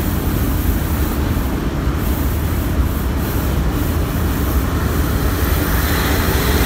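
Inside the cab of a moving 1997 Dodge one-ton van with a 5.9-litre V8: steady low engine and road rumble with wind rushing in through the open windows.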